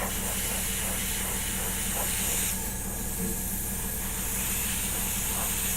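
Airbrush hissing as it sprays paint, over a steady low hum; the spray eases about two and a half seconds in and picks up again near the end.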